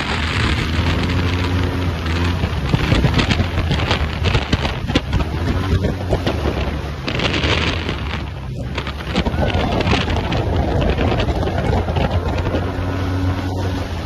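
Heavy wind buffeting on the microphone of a moving bike, with the steady drone of a motorbike engine running underneath.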